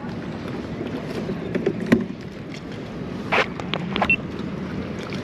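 Steady wind and water noise around a kayak, with a few sharp clicks and knocks from gear being handled, the loudest about two seconds in.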